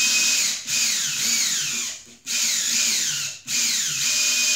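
Cordless drill with a Phillips bit driving a self-drilling plaster anchor into a plasterboard ceiling. It whirs in long bursts, broken by three brief pauses.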